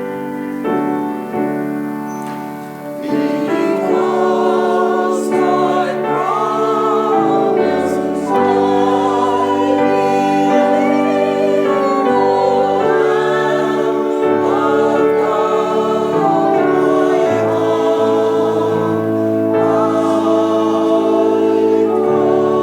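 Choir singing a slow sung response over held keyboard chords. The keyboard chords start first, and the voices come in about three seconds in, louder, with clear vibrato.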